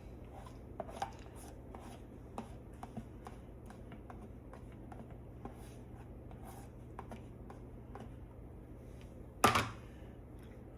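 Kitchen handling sounds: scattered light taps and clicks of utensils and cookware, with one much louder knock about nine and a half seconds in.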